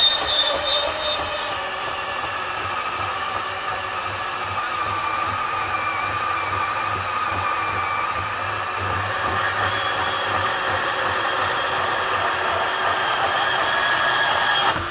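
Ridgid R8604 18V cordless compact band saw running at a steady speed with its blade cutting through 2-inch steel angle iron, a steady whine with several held tones. It stops near the end.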